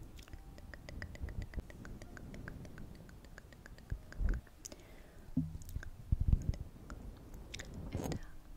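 A rapid, even run of light clicks or taps, about seven a second, lasting roughly three seconds, then a few soft bumps and handling noises.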